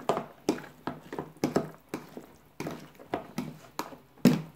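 A bare hand squishing and tossing chopped chicken dinakdakan with mayonnaise in a plastic tub: wet squelches about three times a second, with a louder one near the end.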